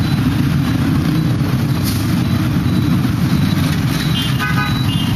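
Dense motorbike and scooter traffic running steadily, a continuous low engine rumble. Short horn toots sound a couple of times near the end.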